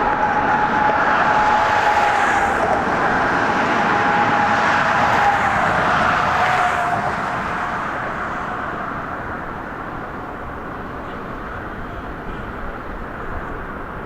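Jet noise from a Boeing 747's four engines at takeoff thrust: a loud rush with a steady whine that dips slightly in pitch about six seconds in, then fades as the aircraft moves away.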